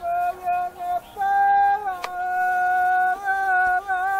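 A single voice singing a traditional Sri Lankan threshing song (kavi) in long held notes that slide from one pitch to the next, with short breaks between phrases.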